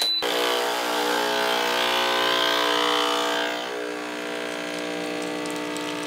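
Casabrews 5700GENSE espresso machine pulling a double shot: a short high beep, then the pump starts and runs with a steady hum and a hiss on top. About three and a half seconds in the hiss fades and the hum settles a little quieter as espresso begins to stream from the portafilter spouts.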